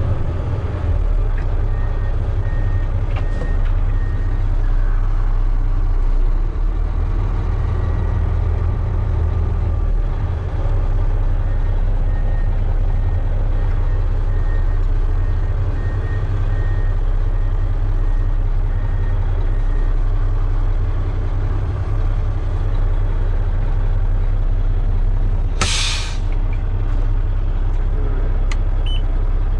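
Mack sander truck's diesel engine running steadily, with one short, sharp hiss of released air from the truck's air brake system near the end.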